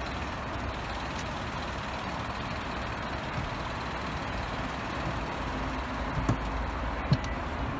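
Steady rumble and hiss of a tour coach's engine running close by, with a couple of light knocks near the end.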